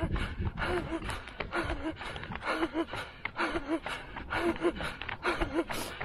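A runner breathing hard in a steady rhythm, panting with a short voiced gasp on each breath, close to a head-mounted camera, with footfalls on asphalt.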